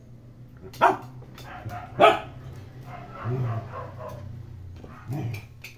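Dog barking in play: two sharp barks about a second and two seconds in, then two softer, lower barks.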